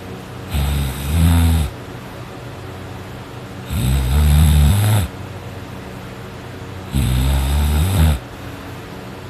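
A sleeping person snoring loudly: three long, low snores about three seconds apart, with quieter breathing hiss between them.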